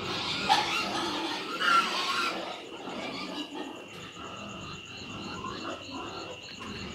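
Rabbits eating star fruit and shuffling on a wire-mesh hutch floor: rustling and chewing noises, loudest in the first couple of seconds, over a steady rhythmic chirping of about three to four pulses a second from night creatures.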